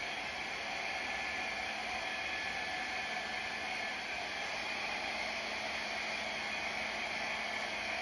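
Hand-held hair dryer running steadily: an even hiss of rushing air with a faint steady whine through it.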